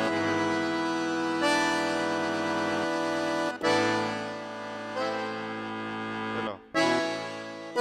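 Giulietti accordion sample on a Yamaha arranger keyboard playing a run of held chords, changing about every one to two seconds. Each new chord starts with a punch of attack and then sustains, imitating an accordion's bellows being pulled.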